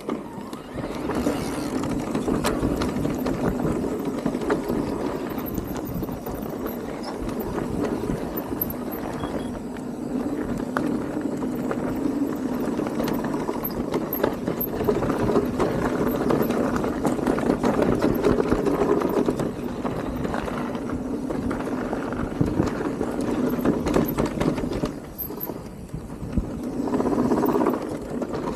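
Electric mountain bike ridden down a dirt trail: a continuous rapid clatter of tyres, chain and frame over roots and bumps, with a short lull a few seconds before the end.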